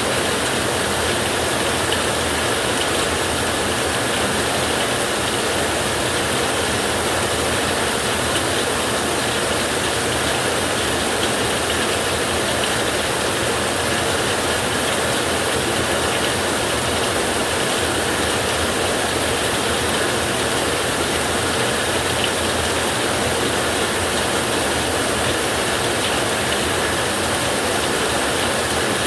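Heavy rain falling steadily on a tin roof: a dense, even patter of drops on the metal.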